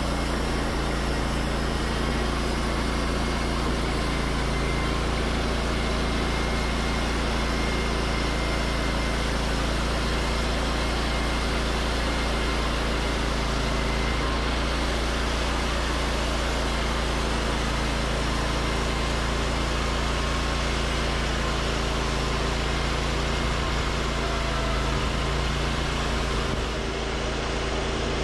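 Wood-Mizer LT40 portable band sawmill running steadily under load, its engine humming evenly while the band blade cuts lengthwise through a white pine log.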